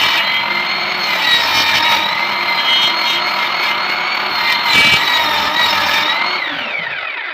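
Electric woodworking power tool motor running steadily with a high whine, then switched off near the end, its pitch falling as it spins down and stops.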